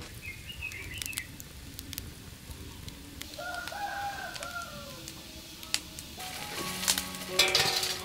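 Small birds chirping about the first second, then a short call from a chicken around the middle. Background music comes in near the end, with a brief burst of hiss.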